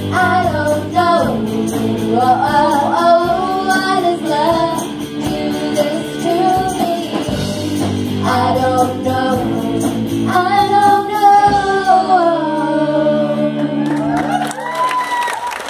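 Live school rock band playing a song: several girls singing together over electric guitars, drums and keyboard. About three-quarters of the way through the drums stop and the final notes are held as the song comes to its end.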